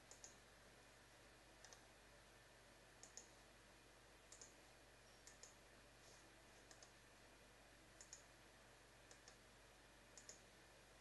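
Faint computer mouse clicks, coming in quick pairs about every second or so, over a low steady hiss.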